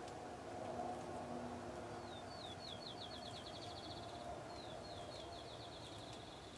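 A small songbird singing twice, a couple of seconds apart: each song is a series of high, down-slurred whistled notes that speed up into a trill. A faint low hum runs under the first couple of seconds.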